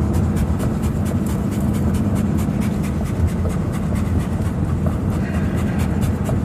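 A Great Dane panting quickly and evenly, about four breaths a second, over the steady low drone of a car.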